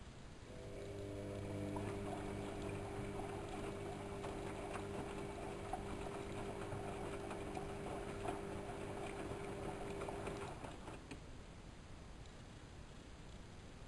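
AEG Electrolux Lavamat L6461 washing machine turning its drum during a boil wash: the motor hums steadily while laundry and water slosh and splash inside, for about ten seconds, then the drum stops and it goes quiet.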